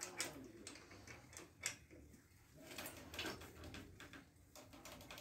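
Scattered light clicks and taps of hands and a tool working on a bicycle's crank and pedal, with one sharper click about a second and a half in.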